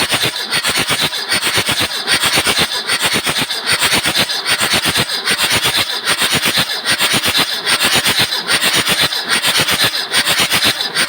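Starter motor cranking a Nissan SD33T six-cylinder diesel with its glow plugs removed, so the engine spins freely with no compression: a loud, rapid, even pulsing that goes on without a break. It is being cranked to test whether the injection pump delivers fuel, since the engine will not start after 18 years of storage.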